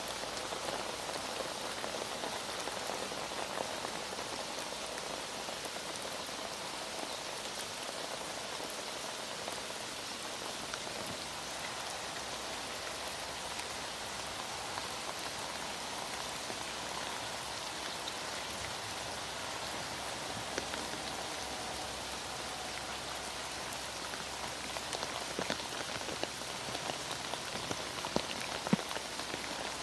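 Heavy rain falling steadily, an even hiss with many small drop patters.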